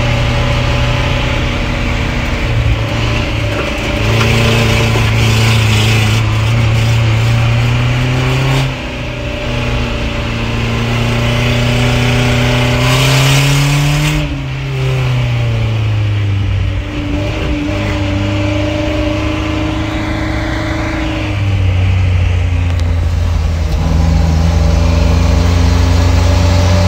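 Engine of an off-road 4x4 heard from inside the cabin while it drives along a rutted dirt track, with occasional hiss. The engine climbs steadily in pitch to a peak about halfway through, drops off sharply, then settles into a steady lower drone that grows louder near the end.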